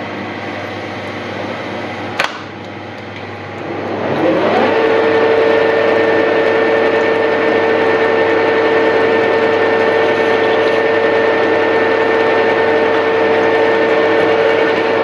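Metal lathe started with a click about two seconds in, its drive rising in pitch over a second to a steady whine. It runs on while the tool turns a steel spindle under a stream of coolant.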